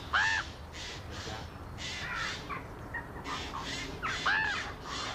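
A crow cawing over and over, harsh calls coming every half-second or so, loudest right at the start and again about four seconds in.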